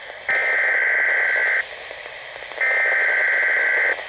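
Two bursts of emergency-alert SAME header data tones, each a harsh, steady two-tone screech about a second long with a one-second gap between them, over faint radio hiss: the digital header that opens a new alert message.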